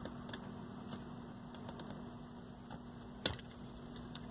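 Small metallic clicks and ticks of pliers working a wire-wrapped lead loose from a terminal post on a circuit board, with one sharper click about three seconds in, over a faint steady hum.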